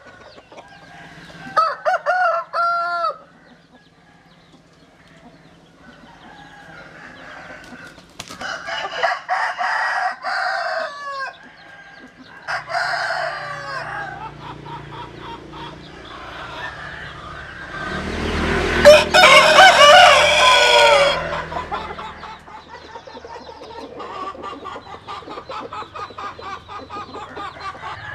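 Roosters crowing, several crows one after another, the loudest about two-thirds of the way through.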